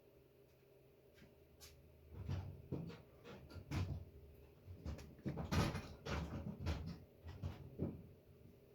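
Hand tools and sockets clattering and knocking in an irregular series of knocks, busiest in the middle, as tools are handled and swapped.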